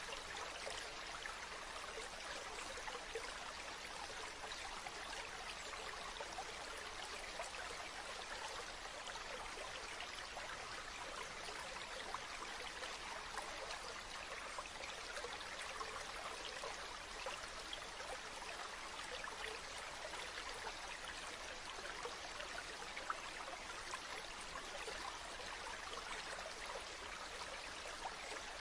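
Stream water babbling steadily: an even rush of running water flecked with many small splashes and trickles.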